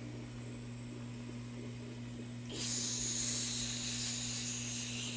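A steady hiss of compressed air escaping at a wall-mounted air filter and pressure regulator starts about two and a half seconds in and keeps going, over a steady low hum.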